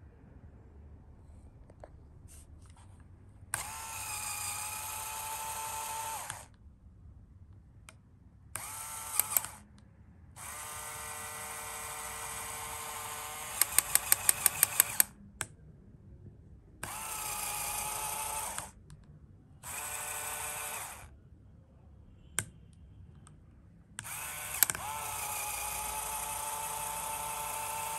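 Small LEGO electric motor whirring through a Technic gear train that drives a scissor lift. It runs in six separate bursts of about one to four seconds each. Near the middle and again at the end, a burst finishes in a quick run of loud clicks, about five a second.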